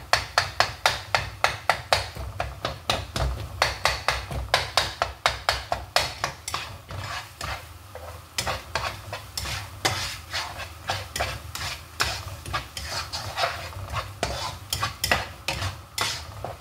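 Spatula stirring and scraping chicken in thick red sauce around a non-stick wok, in quick repeated strokes of about four a second, with a brief lull midway, over a low steady hum.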